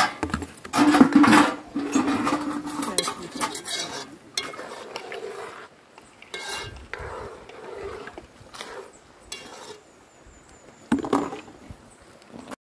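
A spoon stirring and scraping in a cooking pot, with clinks and clatter of metal utensils; busiest and loudest in the first few seconds, then a few scattered knocks.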